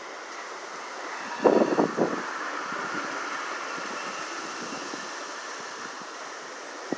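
Strong wind blowing steadily, with a loud burst of gust noise about a second and a half in that lasts under a second.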